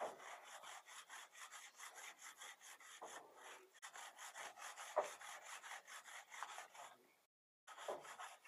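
Hand saw cutting through a lightweight concrete block, in quick, even rasping strokes of about four a second. The strokes break off briefly near the end.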